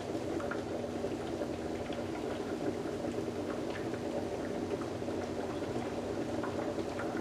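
Water electrolyzer making hydroxy gas, bubbling and fizzing steadily with many small bubble ticks as gas is fed into a bottle, over a steady low hum.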